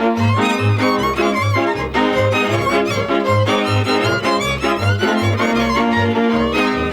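Transylvanian village string band playing a lively dance tune: a fiddle carries the melody over chords from the accompanying strings, with a double bass sounding steady alternating notes on the beat.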